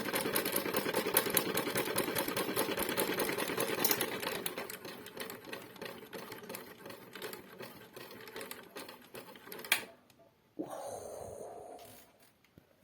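Toy washing machine spinning, its drum and body rattling in a fast, dense clatter that fades after about four seconds as the spin winds down, ending in a sharp click. The owner puts the clicking down to a broken shock absorber and a loosened mounting. A short burst of noise follows near the end.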